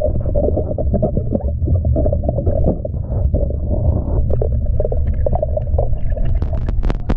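Muffled underwater sound of a swimming pool heard through a submerged camera: a steady low rumble of moving water with faint crackles. Near the end comes a quick run of sharp clicks.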